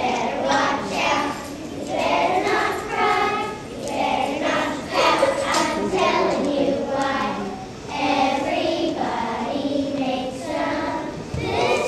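A group of young children singing together in chorus.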